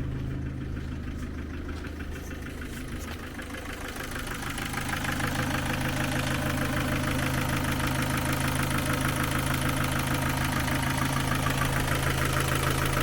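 Ford Focus 2 petrol engine idling steadily with a light valve clatter, growing louder about four seconds in. The clatter comes from valves whose clearances are still out of tolerance, which the mechanic says still rattle as before.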